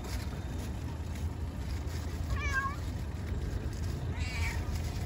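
A cat meowing twice, a clear meow about halfway through and a fainter one near the end: a hungry street cat begging for food.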